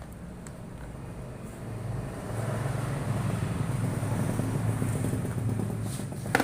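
Vertical feed-pellet mill running steadily with a low motor hum that grows louder about two seconds in, with a sharp knock near the end.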